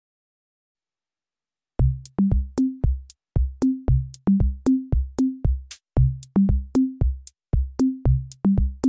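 Silence, then about two seconds in electronic background music starts: a steady drum-machine beat with a bouncing bass line.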